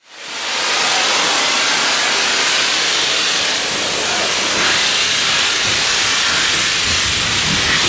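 Steam hissing from the steam locomotive 35005 Canadian Pacific. It is a loud, steady hiss that swells up over the first second.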